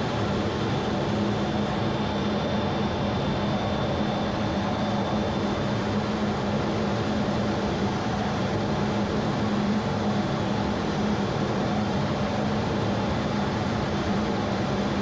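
Steady roar of a jet aircraft engine, even in level throughout, with a low hum under it.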